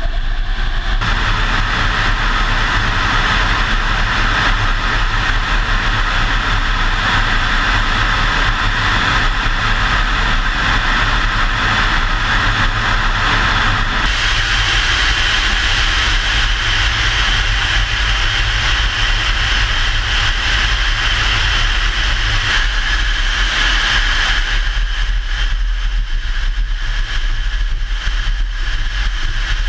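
Motor vehicle running steadily: a continuous low engine drone under a loud hiss of road and wind noise, changing character abruptly a few times.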